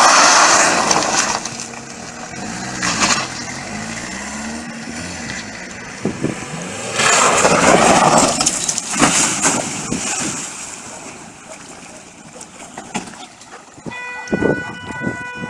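A car revving hard and skidding on gravel, with loud bursts of tyre and stone noise, the loudest around seven to eight seconds in. A steady tone comes in near the end, after the car has crashed into a ditch.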